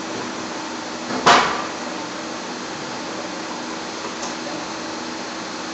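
Steady machine hum of a forging press with a few low tones, broken just over a second in by one loud, sharp knock that rings out briefly.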